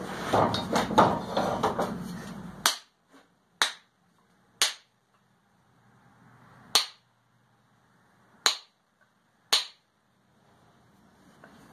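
Wooden handle being knocked into the eye of a forged eye punch: a burst of rattling handling noise that cuts off suddenly, then six sharp separate knocks about one to two seconds apart.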